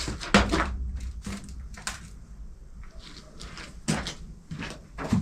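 Large wooden barrel being tilted over onto tyres, giving a series of short wooden knocks and creaks, about five spread irregularly through the stretch.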